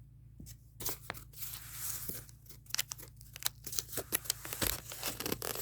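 Cardboard shipping box being torn and pried open, a run of ripping and crackling with many sharp clicks, starting about a second in.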